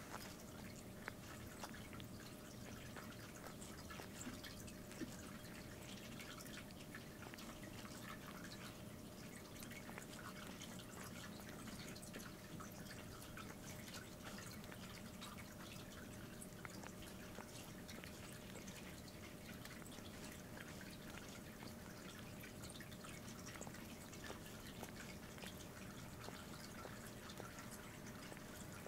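A cat grooming itself close up, its tongue licking its fur in many small, irregular wet clicks. A faint steady hum lies beneath.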